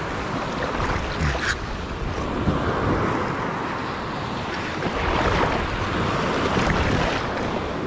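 Gulf surf washing and slapping around a wader standing in the water, with wind buffeting the microphone; the wash swells louder about five seconds in as a wave comes through.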